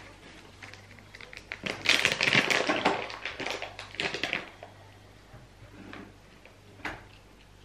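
Plastic cat-treat pouch crinkling and rustling as it is handled and opened for treats, loudest for a couple of seconds near the middle, then fainter crackles and one sharp click near the end.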